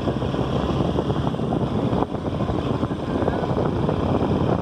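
Motorcycle engine running while riding, heard as a steady, dense rumble mixed with road and wind noise.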